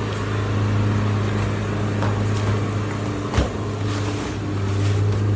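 Steady low machine hum with even overtones, with two brief knocks about two and three and a half seconds in.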